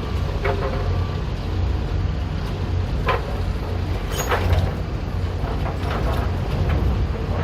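Construction-site machinery running with a steady low hum, with several sharp metallic clanks and knocks that come at irregular intervals.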